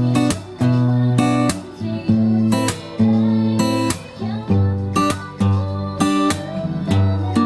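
Acoustic guitar strummed in a steady rhythm, each stroke ringing into a held chord and the chords changing every half second to a second, working through the chord progression of a pop song.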